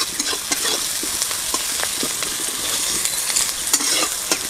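Sliced onions sizzling in hot oil in a metal kadhai while being stirred with a metal spatula, the spatula scraping and clicking against the pan now and then over the steady sizzle.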